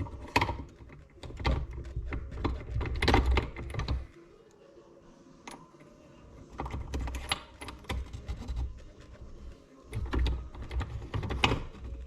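Bursts of quick, irregular metal clicks and taps with low rumbling handling noise, as small bolts are started and worked into the Honda CR500 engine cases by hand, with a quieter pause in the middle.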